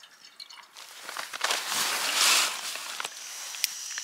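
Canister-top gas stove being worked: a rush of hissing noise swells and eases over a couple of seconds, then a sharp click near the end, with a steadier burner noise carrying on.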